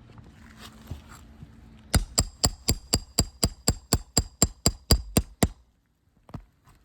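A roofing hammer tapping out a quick run of about fifteen strikes, roughly four a second, each with a short metallic ring; the run starts about two seconds in and stops suddenly.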